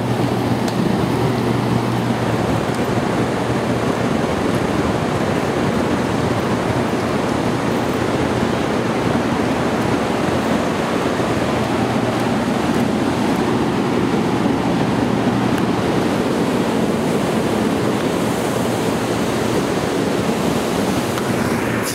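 Steady, loud rush of a waterfall and fast-flowing river water, even and unbroken, with a low steady hum that drops away in the first couple of seconds.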